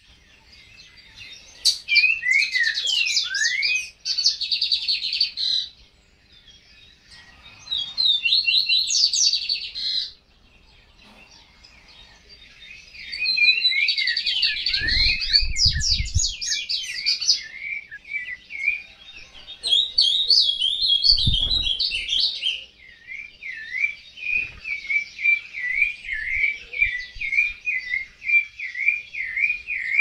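Small songbirds singing in bursts of fast, high twittering and warbling, then a long steady run of short chirps, two or three a second, from a little past the middle on. Two brief low rumbles sound around the middle.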